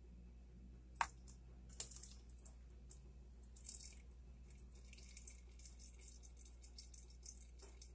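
Faint wet clicks and small plops of cooked peach pieces being spooned into batter in a plastic mixing bowl, with one sharper click about a second in and a short wet squish near the middle.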